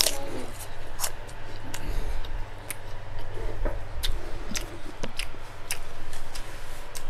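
Crisp crunching of a raw apple being bitten and chewed close to a clip-on microphone: sharp, irregular crunches, about one or two a second.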